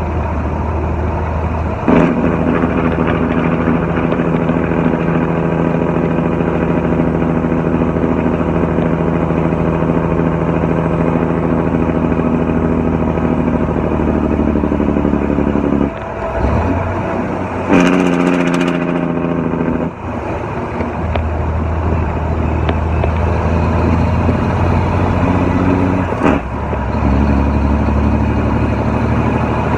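400 Big Cam Cummins diesel in a heavily loaded semi truck running with its Jake (engine compression) brake on, holding the truck back down a steep grade. The loud, steady engine note changes abruptly several times as the brake cuts in and out.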